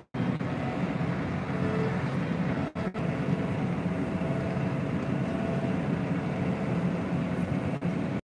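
Tractor engine running steadily, heard from inside the cab while the tractor works its front-end loader. The sound cuts out for a moment three times: at the start, about three seconds in, and near the end.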